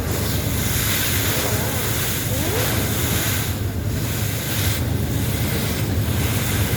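Heavy wind buffeting the microphone over rushing water, with the steady low drone of a river launch's engine underneath.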